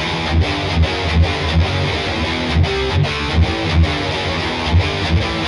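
Yamaha ERG121C electric guitar played with heavy distortion: a chugging riff of low notes and chords, accented in a steady rhythm about every half second with brief breaks.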